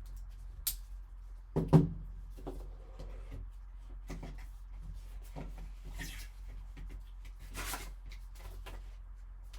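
Sealed cardboard trading-card box being opened and handled by hand: a sharp knock a little under two seconds in, then scattered lighter taps, scrapes and rustles of cardboard and wrapping, with a longer rustle near the end.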